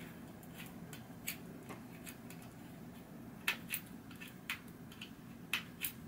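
Light metallic clicks and ticks of bicycle spokes knocking against each other and the rim as a spoke is worked into place while lacing a front wheel, with a handful of sharper clicks in the second half.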